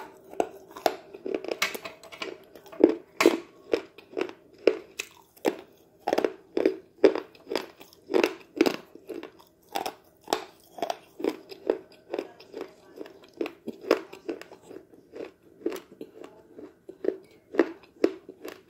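Close-up crunching and chewing of sticks of chalk, a crisp crunch about twice a second as the chalk is bitten and ground between the teeth.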